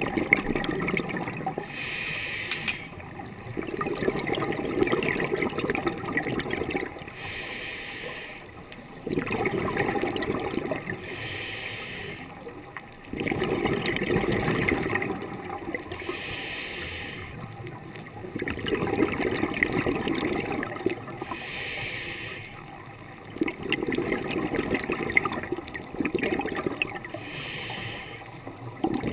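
Scuba diver breathing through a regulator underwater: a short hiss on each inhale, then a longer rush of exhaled bubbles, repeating about every five seconds.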